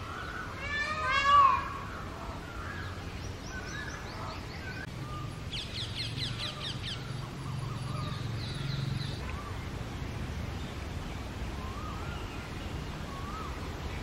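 Indian peafowl (peacock) giving one loud call of quickly repeated notes that grow louder, about a second in. Afterwards, fainter chirps and a quick high trill from smaller birds.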